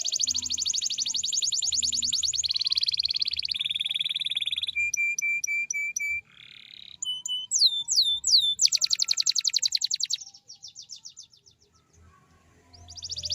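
Domestic canary singing a long, varied song: fast high rolling trills, a run of clear repeated whistled notes, a few falling whistles and a fast rattle. After a pause of about a second the trill starts again near the end.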